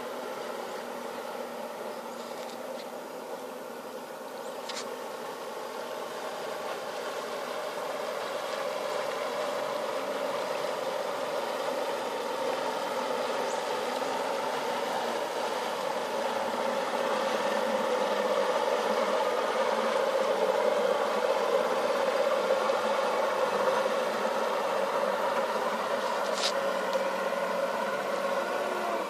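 Twin outboard motors of an Intermarine Z-29 speedboat running at idle as the boat moves slowly past, growing louder toward the middle and easing off slightly near the end.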